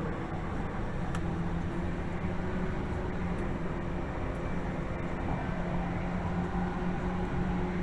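Tokyu 8500 series electric train running at speed, heard from inside the passenger car: a steady rumble of wheels on rail with a low, even hum and a few faint clicks.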